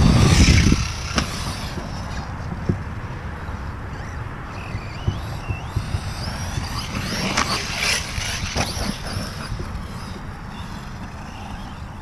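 Reely Raptor 6S electric RC car running on a 4S battery over a dirt track: the motor whine rises and falls as it speeds up and slows, over a steady noisy rumble, with a loud burst at the start as it slides through a turn throwing up dirt.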